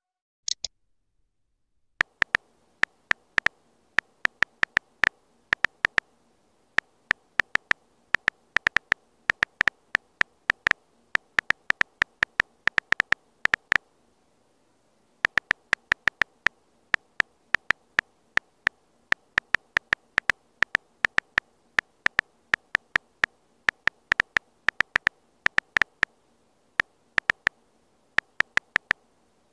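Phone's on-screen keyboard key-press clicks, one per keystroke, in quick irregular runs of typing, with a pause of about a second near the middle.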